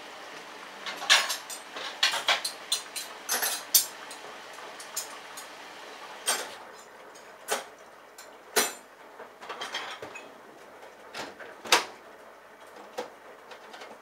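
Bosch Logixx WAS32461GB front-loading washing machine tumbling a small wet load early in its easy care wash, after it has sensed a mini load: a faint steady swish with many irregular sharp clicks and knocks from the turning drum, thickest in the first few seconds and sparser later.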